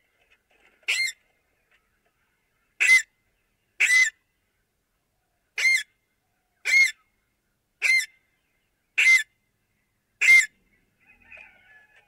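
Alexandrine parakeet giving eight short, loud calls, about one a second after a longer pause following the first.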